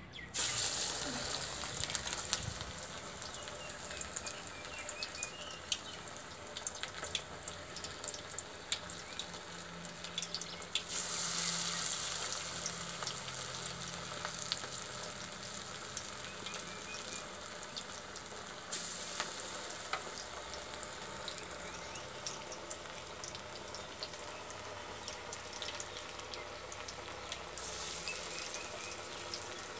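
Banana flower vadas deep-frying in hot oil in an iron kadai: a sudden burst of sizzling as a vada is dropped in, then a steady crackling bubble that swells louder three more times.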